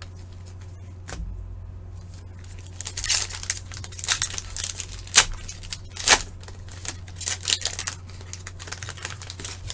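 A 2020-21 Upper Deck Series 1 hockey card pack being torn open, its wrapper crinkling. Sharp crackles come in a run of irregular spikes, starting about three seconds in and lasting to near the end, over a steady low hum.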